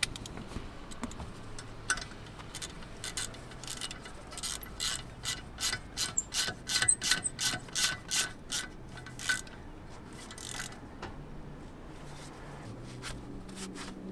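3/8-inch socket ratchet with a Torx T50 bit clicking as it runs in the brake rotor's retaining screw. The clicks come in a steady run, loudest in the middle, then only a few scattered clicks.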